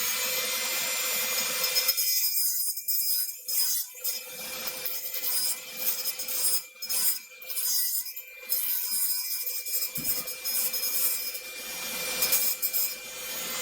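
A high-speed rotary tool runs with a steady high whine while its bit grinds away material in short, irregular passes through the middle, trimming a part so that the SSD will fit.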